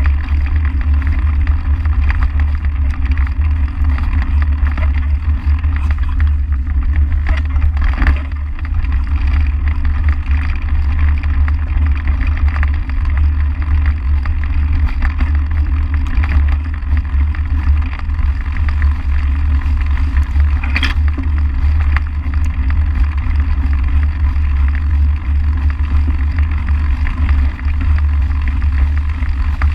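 Mountain bike riding over a dirt trail covered in fallen leaves, heard through the bike-mounted camera: a steady low wind rumble on the microphone under tyre and trail noise. There are sharp knocks about eight seconds in and again around twenty-one seconds.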